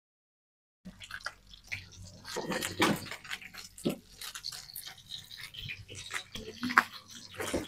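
Fish frying in hot oil, a dense sizzle with scattered crackles and pops, starting about a second in after a short silence.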